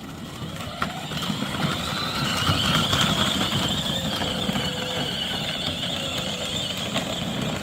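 24V ride-on toy Jeep's four electric drive motors and plastic gearboxes whining steadily as it drives off, with the rumble of its plastic wheels rolling underneath.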